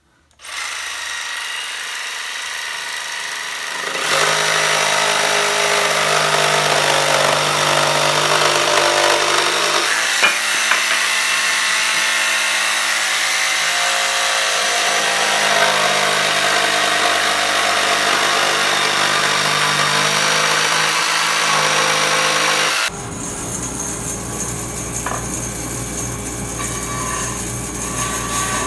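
Stationary woodworking machine (band saw or planer) running, then cutting wood from about four seconds in, louder and steady. About twenty-three seconds in the sound switches abruptly to another steady machine sound with a deeper hum.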